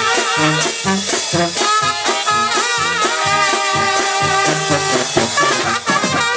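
Live tamborazo brass band playing: a sousaphone pumps the bass line under trumpets and other brass, with the tambora bass drum and its mounted cymbal striking steadily on the beat.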